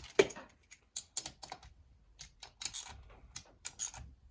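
Scattered light clicks and taps of small metal engine parts and tools being handled, irregularly spaced with no steady rhythm.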